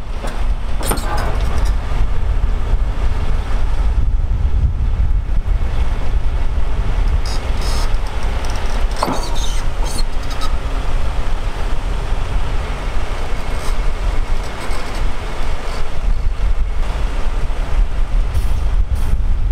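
Tractor engine running steadily under load, pulling a heavy disc harrow through a field, a deep continuous rumble with a few brief rattles from the implement.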